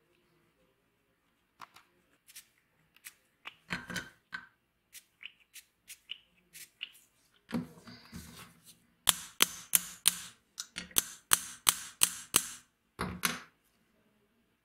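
Rusty steel combination pliers being handled against a steel bench vise: scattered light metal clicks and scrapes, then a run of sharp metal clacks at about three a second, with a last pair near the end.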